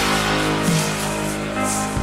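Film soundtrack music of held chords.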